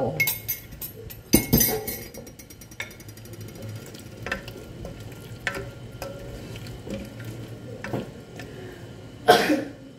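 A spoon stirring string beans in broth in the inner pot of an electric multi-cooker, knocking and clinking against the pot now and then, with a louder clatter near the end.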